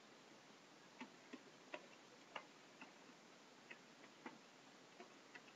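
Computer keyboard typing: about ten faint, irregularly spaced keystrokes.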